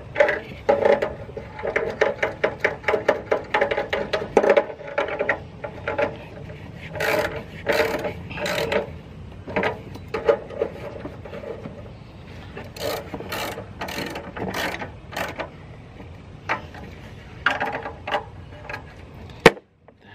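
Hand tools working a tight 10 mm bolt under the hood: quick runs of ratchet-like clicking at first, then scattered sharp clinks of steel on metal in short clusters, with one sharp click just before the end.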